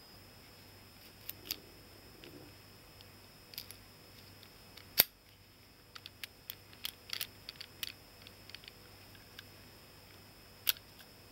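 Clicks of a Hahn .45 BB revolver's action being worked by hand. There are scattered light clicks, one sharp loud snap about five seconds in, a quick run of smaller clicks after it, and another sharp click near the end.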